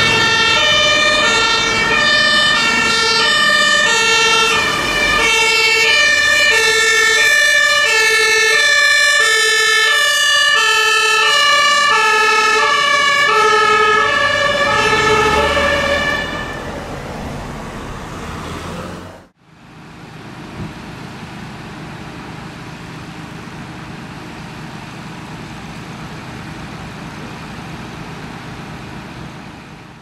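German fire engine's two-tone siren (Martinshorn), high and low tones alternating about twice a second, loud at first and fading away after about 16 seconds. After a sudden cut a steady, quieter hiss follows.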